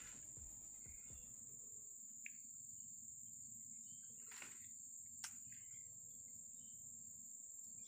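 Faint, steady, high-pitched insect trill, with a few soft clicks at about four and five seconds in.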